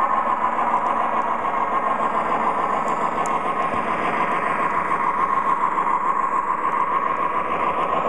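MTH Premier O-scale GP40 model diesel locomotive running, its onboard sound system playing a steady diesel engine drone through a small speaker, over the rolling of the train's wheels on the track.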